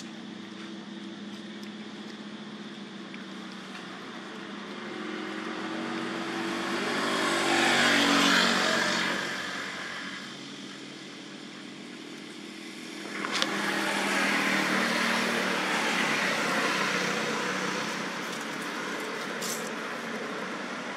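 Two road vehicles pass one after the other, each swelling and fading. The first builds slowly, peaks about eight seconds in and dies away; the second rises suddenly about thirteen seconds in and fades slowly. A brief sharp click comes at the very start.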